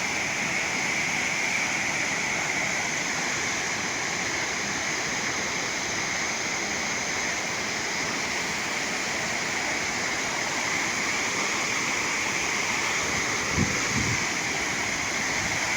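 Water of the Punnayar waterfall pouring in a steady, unbroken rush, with a couple of soft knocks near the end.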